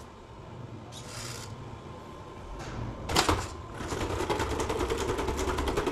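Small quadruped robot dog's leg motors whirring and clicking as it walks backward. A sharp clack comes about three seconds in, then a fast, even clicking over a steady hum.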